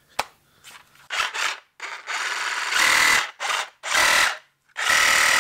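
DeWalt DCS367 20V MAX compact brushless reciprocating saw run in the hand without cutting, after a click near the start. It runs in about five short trigger pulls. The longest pull starts softer and then gets louder, and the loudest pulls carry a steady high whine.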